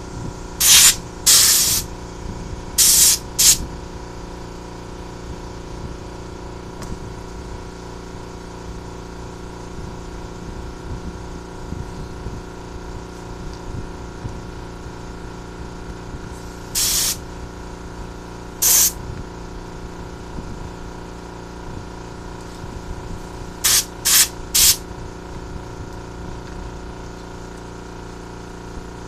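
Short blasts of compressed air from an air blow gun cleaning off spark plugs: several bursts in the first few seconds, two more past the middle, and three quick ones later. Under them runs the steady hum of the air compressor.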